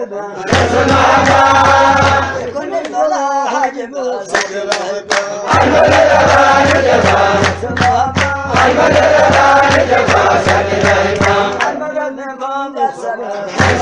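Menzuma, an Ethiopian Muslim devotional chant: male voices chanting a repeated melody over a steady low bass, with short runs of sharp percussive strikes about four seconds in and again around eight seconds.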